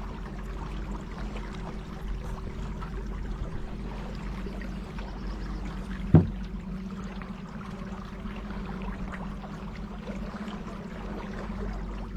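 Water trickling and splashing around a kayak on the river, over a steady low hum. One sharp knock about six seconds in.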